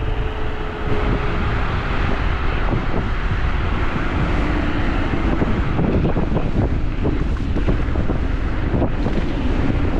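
Heavy wind buffeting the microphone during a fast ride on a Teverun Fighter Supreme Ultra 72V electric scooter, a constant low rumble. A faint whine runs under it and slowly drops in pitch over the first five seconds or so.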